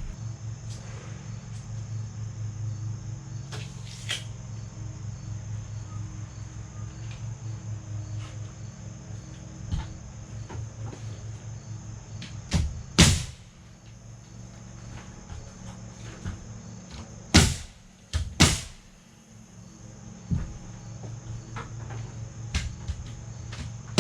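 A steady low mechanical hum with a slight pulse, broken by a few separate sharp knocks or bangs spread through it.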